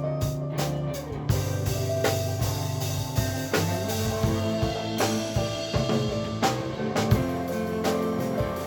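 Live folk music in its loudest passage: guitar with drums beating steadily under sustained notes, without singing.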